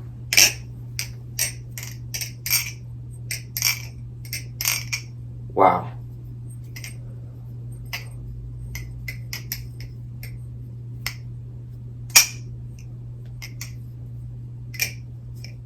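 NRB Vortex balisong being flipped: its metal handles clack sharply against the pins and each other, about two clicks a second for the first five seconds, then sparser clicks. A steady low hum runs underneath.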